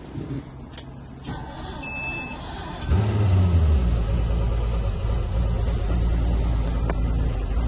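A brief high beep, then the engine of a 2000 Pro-Line 30 Sport boat cranks and catches about three seconds in, settling into a steady idle.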